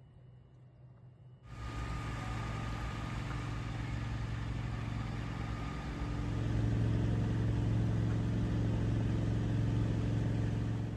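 A motor vehicle's engine running steadily, cutting in suddenly about a second and a half in and getting louder around the middle.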